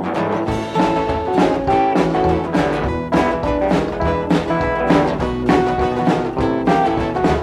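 Instrumental opening of an up-tempo band song: a drum kit keeps a steady beat under horns and other instruments, with the full band coming in just after the start.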